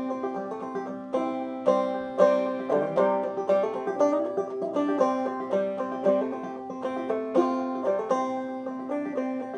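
Five-string banjo played clawhammer style in double C tuning with the D string raised to E: a steady run of brushed and plucked notes over a ringing drone.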